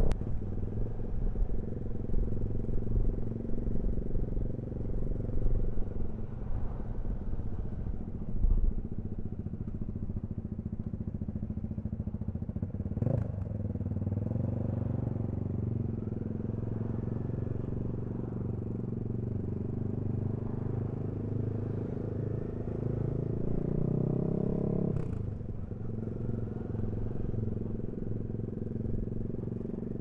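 Suzuki V-Strom's V-twin engine running under way, heard from the rider's position with road and wind noise. The engine note shifts up and down several times. It climbs and then drops sharply about 25 seconds in, and there are sharp clicks about halfway through and at that drop.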